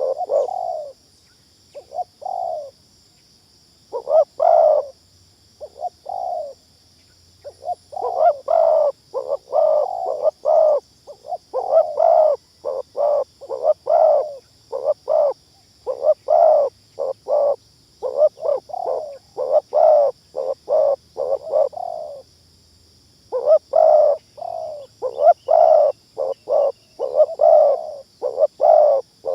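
Spotted doves cooing in fast, loud runs of short notes, with a few pauses of a second or two near the start and again just past the middle.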